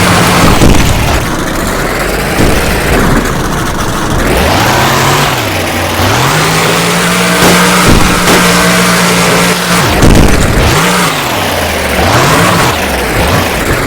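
Monster truck's V8 engine revving hard, its pitch rising and falling over and over with a long held high rev in the middle. A few sharp bangs come through about seven to ten seconds in.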